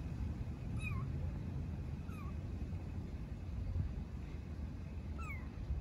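Young kitten mewing three times, short high calls that each slide down in pitch, as a stray kitten calls for its mother cat.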